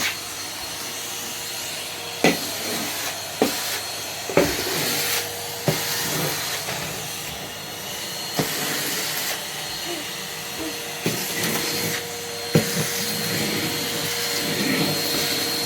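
Numatic Henry canister vacuum cleaner running steadily, with a handful of sharp clicks and rattles as beads are sucked up through the hose.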